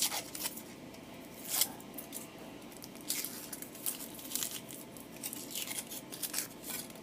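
Foil wrapper of a Kinder Surprise egg being unwrapped by hand: a series of separate crinkles and rustles, a few seconds apart.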